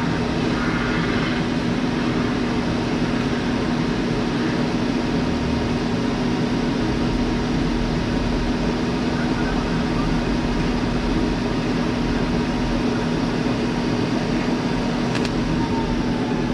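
Welding machine running with a steady electrical hum under a continuous hiss from the welding arc, with a faint tone that dips away near the end.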